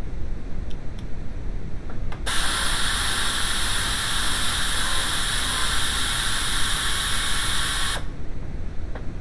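A steady spraying hiss that starts about two seconds in and cuts off sharply about six seconds later, over a low background rumble.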